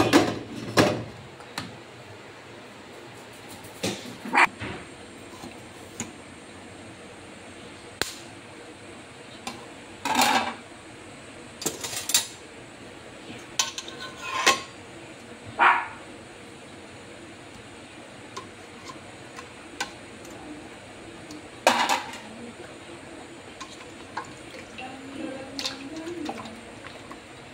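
Kitchen clatter: about a dozen separate knocks and clinks of cookware and utensils, spaced a second or more apart, starting with the domed lid of a halogen convection oven being handled and including a stainless steel mixing bowl being knocked.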